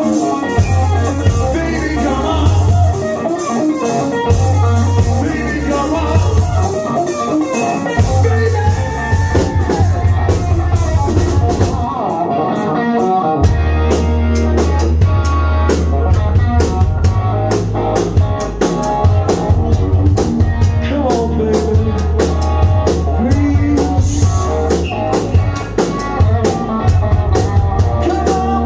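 Hard rock band playing live and loud, an overdriven electric guitar over bass and drums. The low end stops briefly a few times in the first half, then drives steadily.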